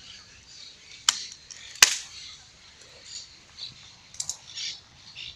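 Birds chirping and calling in short bursts, with two sharp clicks, the first about a second in and the second, the loudest sound, a little under a second later.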